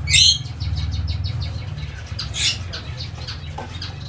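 Gouldian finch calling in high-pitched notes: a loud wavering chirp at the start, a quick run of short ticking notes, then another chirp about two and a half seconds in. A steady low hum runs underneath.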